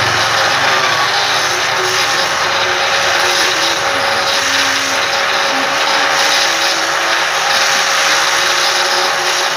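A handheld power tool's electric motor running steadily at high speed, a loud even whir with a faint steady hum under it.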